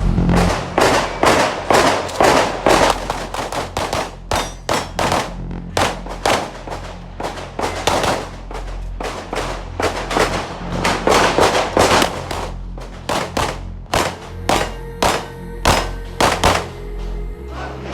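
Handgun shots fired in rapid strings, several a second with short pauses between strings, over background music with a steady low beat.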